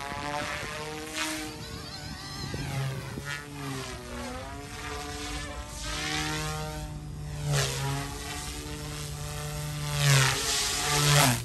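YXZNRC F280 flybarless RC helicopter with dual brushless direct-drive motors flying aerobatics: a motor whine and rotor noise that shift up and down in pitch as it manoeuvres. It grows louder about ten seconds in as it swoops low.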